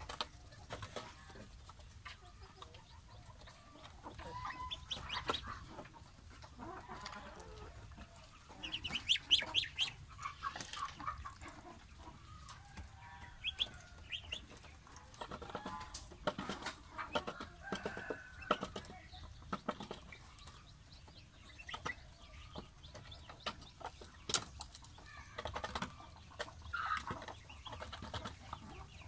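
Young goslings peeping and calling on and off, with scattered sharp taps. The calls are loudest around a third of the way in.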